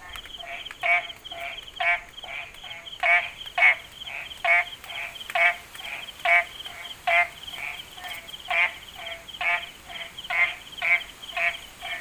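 A chorus of frogs calling, about two calls a second in a steady rhythm, some louder than others, with a steady high whine behind them.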